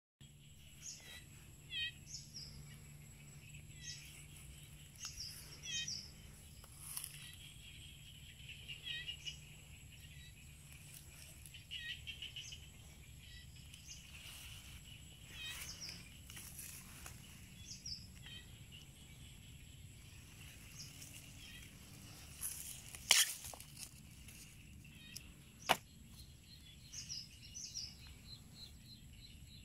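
Small birds chirping repeatedly in short calls over a steady low hum. Two sharp clicks stand out near the end, louder than the birds.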